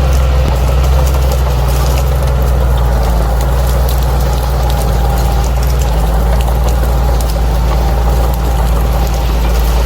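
Bulldozer's diesel engine running steadily with a strong low drone.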